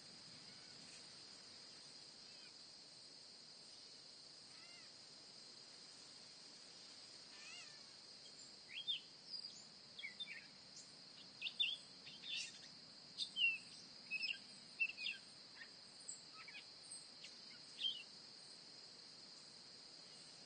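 Steady high drone of insects, with a run of short, sharp bird chirps and calls between about 8 and 18 seconds in.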